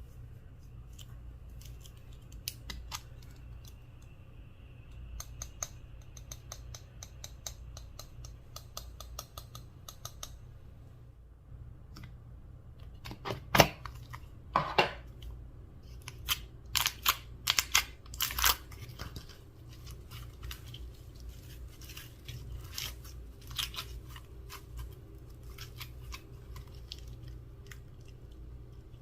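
Slime being worked by hand, with runs of small sticky clicks and pops and a cluster of louder snaps around the middle.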